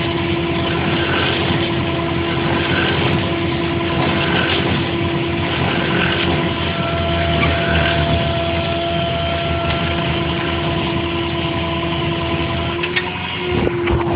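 Crane truck's engine running steadily with a constant-pitched hum while the well pump's pipe is hoisted; the hum briefly wavers near the end.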